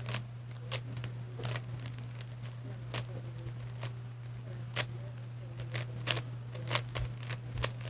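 Plastic clicking of a transparent speedcube's layers being turned quickly during a solve: irregular sharp clicks, about two to three a second, coming faster near the end, over a steady low hum.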